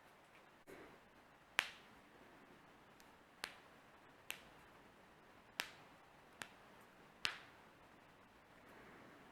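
A person cracking their own joints: six sharp, separate pops spaced about a second apart, the loudest about one and a half seconds in and another near the end, with a faint rustle of movement shortly before the end.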